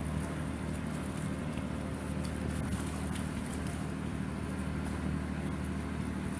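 Boat engine running steadily, a low, even drone with no change in pitch.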